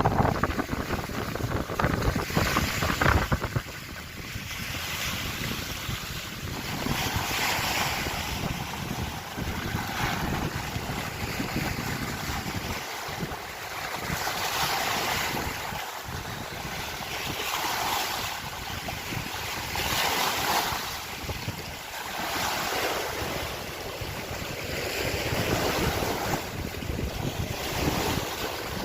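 Lake waves washing onto the shore in repeated swells about every two to three seconds. Wind buffets the microphone with a low rumble during the first few seconds.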